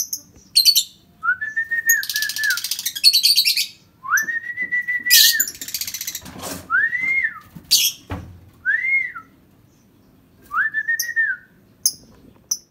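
Pet bird chirping and squeaking shrilly, alternating with clear whistled notes, some held at one pitch and some swooping up and down, about seven in all.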